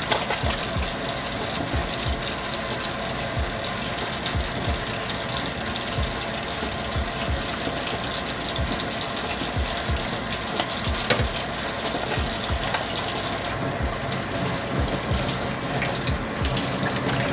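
Kitchen faucet running steadily into a sink while hands are rinsed and scrubbed under the stream, water splashing off them.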